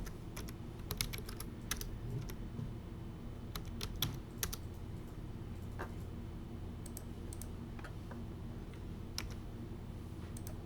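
Typing on a computer keyboard: short, irregular runs of keystrokes with gaps between them, over a low steady hum.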